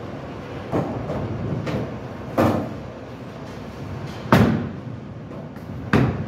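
Bowling alley noise: a steady low rumble of rolling balls, broken by four sharp knocks of bowling balls meeting the lane and the ball return. The loudest comes about four seconds in, just as a ball is released onto the lane, and another comes near the end.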